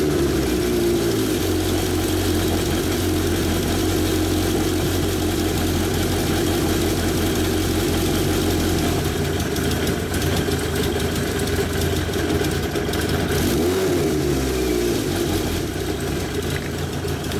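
Suzuki GSX1100S Katana's air-cooled inline-four idling steadily, just after starting, its revs settling during the first second. The revs waver briefly about fourteen seconds in, then steady again.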